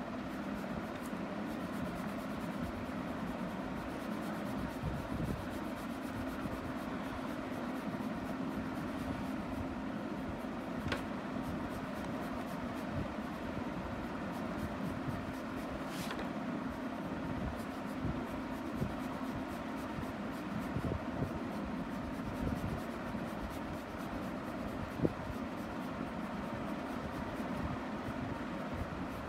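Green colour pencil scratching on drawing paper as a leaf and stem are shaded in, over a steady low hum, with a few faint clicks.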